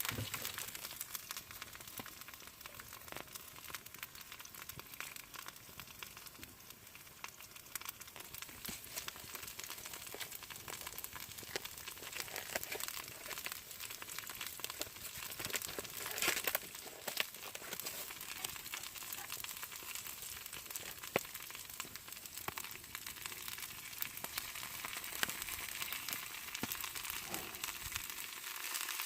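Food sizzling and crackling in a frying pan, with many fine pops and a brief louder flare of sizzle about halfway through.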